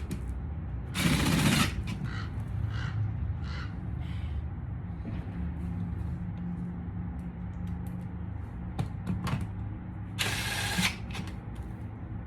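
Hand-tool and parts-handling noise from work on a car's door panel: scattered small clicks and two short, loud rasping bursts, about a second in and again near the end, over a steady low hum.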